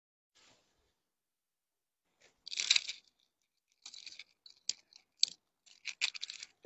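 Cloth and packaging being handled: irregular bursts of rustling and crinkling with a few sharp clicks. They start about two and a half seconds in, and the first burst is the loudest.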